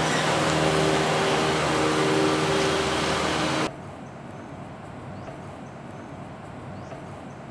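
Road traffic noise with a vehicle engine humming steadily. A little over halfway through it cuts off abruptly to a much quieter outdoor background with a few faint high chirps.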